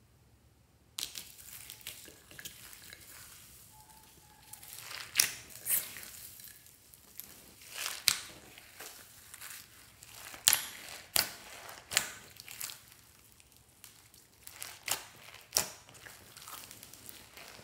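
Hands kneading glossy slime packed with foam beads, a steady crackling crunch with many sharp pops. It starts about a second in.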